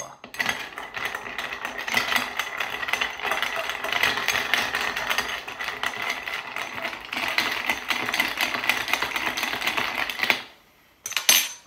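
Bar spoon stirring ice cubes round a stemmed balloon glass, a fast continuous clinking rattle, to chill the glass. It stops about ten and a half seconds in, with one more short clink near the end.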